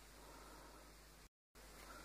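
Near silence: faint room tone, broken by a moment of dead silence about two-thirds of the way through.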